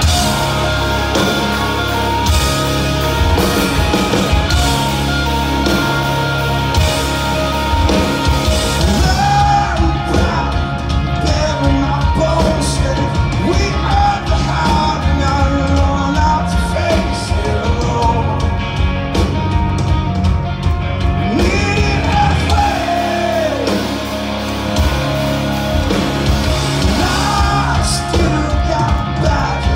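Live rock band playing loudly with electric guitars, bass, drums and a sung lead vocal, heard from within the audience in a large hall. The bass thins out briefly about three-quarters of the way through, then comes back in.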